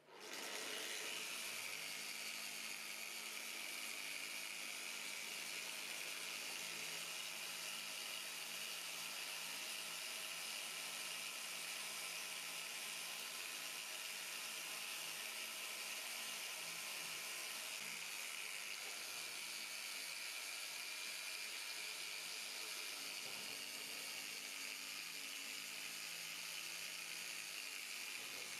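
Cordless random-orbital machine with a foam-backed pad starting up and running steadily against a plastic headlight lens, a constant whirring hiss.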